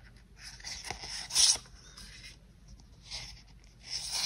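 Sheets of paper planner stickers being leafed through and slid over one another by hand: a few short rustles and swishes, the loudest about one and a half seconds in and another near the end.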